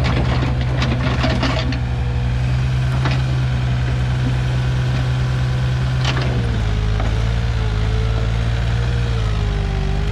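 Komatsu PC15 mini excavator's diesel engine running steadily, with a few sharp knocks. About six and a half seconds in the engine note shifts and a wavering whine comes in over it.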